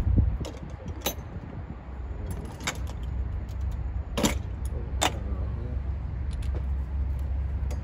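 A few sharp metallic clinks and rattles of parts being handled and fitted, over a steady low rumble.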